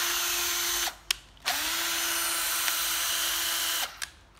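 Hitachi 12V cordless drill driver spinning with no load in short trigger pulls, a steady motor whine that winds down just under a second in. After a click it spins up again about a second and a half in and runs about two and a half seconds. Another click near the end, then it starts once more.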